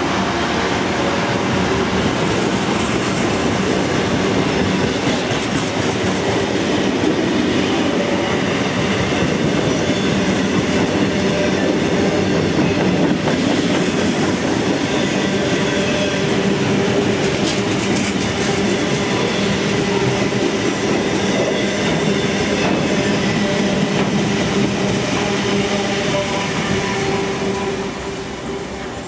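Loaded steel-coil wagons of a heavy freight train rolling past at speed: a loud, steady rumble and clatter of wheels on the rails, dying away near the end as the last wagon goes by.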